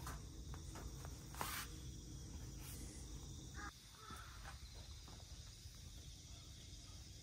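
Quiet outdoor ambience with scattered light knocks and rustles, one louder knock about one and a half seconds in and a brief chirp about halfway through; the low rumble eases off after that.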